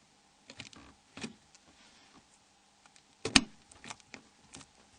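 Small clicks and taps of a Nokia 6125 phone's housing parts being handled and fitted together, with one sharper click a little past three seconds in.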